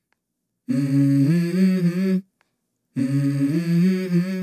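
A voice humming a short phrase of a few held notes stepping up in pitch, twice, with dead silent gaps between; the same phrase repeats like a loop.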